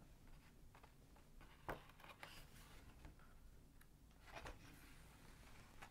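Near silence: room tone, with a faint paper rustle and a soft click about two seconds in as a picture book's page is turned.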